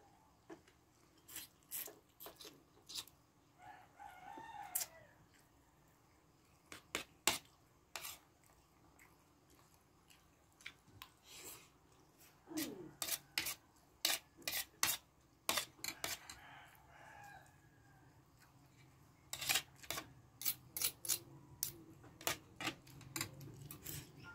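Metal spoon and fork clinking and scraping against a plate during a meal, in scattered sharp clicks with quiet gaps between them and busier runs in the second half.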